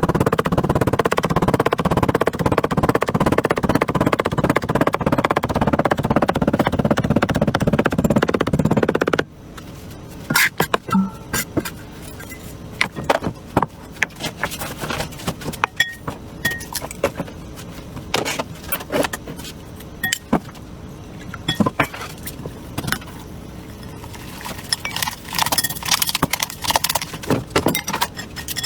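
A loud, dense, steady noise for about the first nine seconds, which cuts off abruptly. Then a knife cutting potatoes on a cutting board: irregular sharp taps and clicks, coming thicker near the end.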